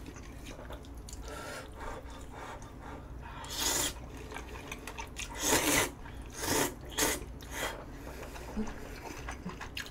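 Ramen noodles from budae-jjigae being slurped: about five short hissing slurps, the first about three and a half seconds in and the rest between five and a half and eight seconds.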